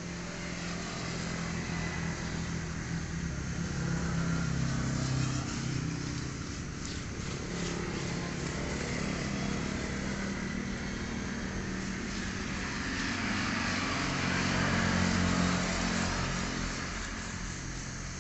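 A motor engine running steadily, swelling louder around five seconds in and again around fifteen seconds in.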